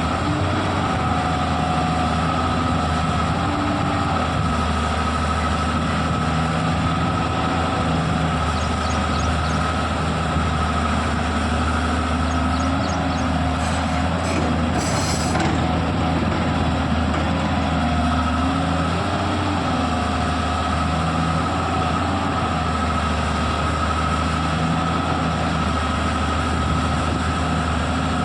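Tata Hitachi EX210 hydraulic excavator running: a steady diesel engine hum with a constant whine above it. Parts of the note rise and fall gently every few seconds, and a brief high-pitched sound comes about halfway through.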